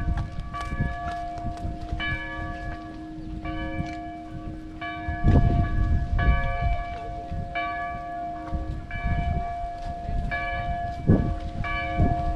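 Church bells ringing, struck over and over at different pitches, each stroke starting sharply and ringing on. A couple of low rumbles about five seconds in and near the end.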